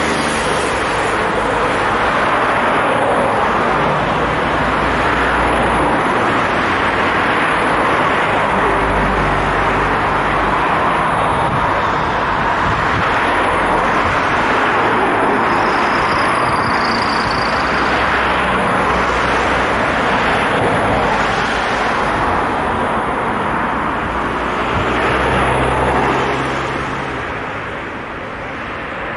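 Steady road traffic: cars and vans passing close one after another on a multi-lane city road, a continuous rush of tyre and engine noise that eases off for a moment near the end.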